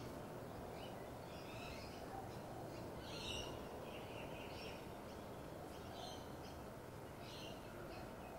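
Faint bird calls, several short chirps scattered over a few seconds, over a steady background hiss.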